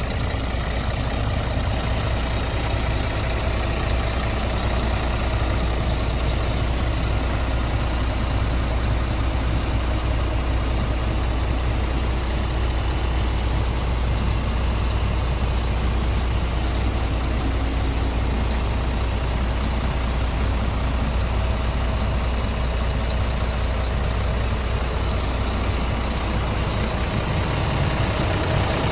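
Scania R tractor unit's diesel engine idling steadily, a constant low hum.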